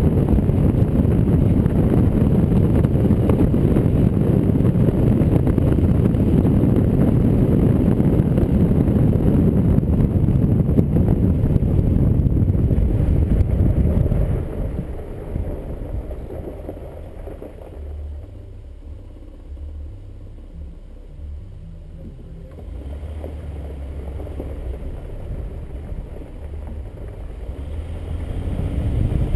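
Jeep Wrangler Rubicon driving on a gravel road: a steady rumble of tyres on gravel with wind on the microphone. About halfway through it slows nearly to a stop and the noise sinks to a low rumble, then it builds again near the end as the Jeep picks up speed.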